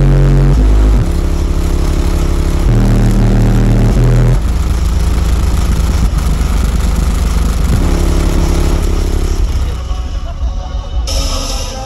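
Bass-heavy music played very loud through eight 18-inch Resilient Sound Platinum subwoofers driven by eight Taramps MD8000 amplifiers, heard inside the truck cab. The deep bass notes change every second or two and overload the microphone into a distorted rumble, easing somewhat near the end.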